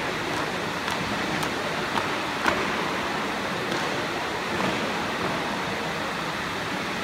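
Steady noise of a crowded, echoing sports hall. A few sharp stamps, roughly half a second apart, come in the first few seconds as the drill team strikes its boots on the wooden floor.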